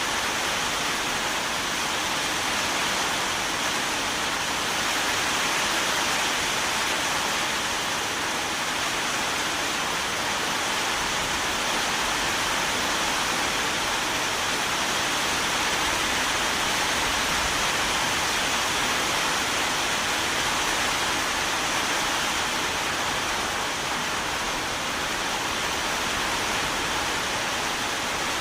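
Steady, even rain, a constant hiss with no thunder or separate drops standing out.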